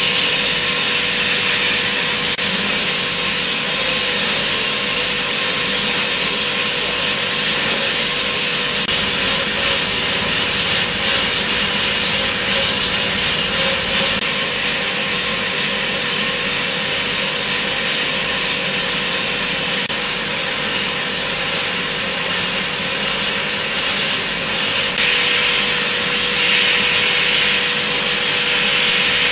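CNC machining centre milling a metal cavity with a small end mill: a steady spindle whine under a continuous hiss of cutting. The cutting noise grows brighter about 25 seconds in.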